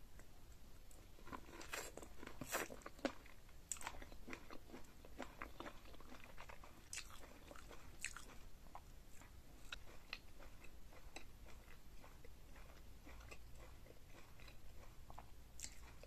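Close-miked chewing and biting of seafood boil food: a run of crisp wet clicks and crunches, thickest about two to three seconds in, then scattered smaller clicks.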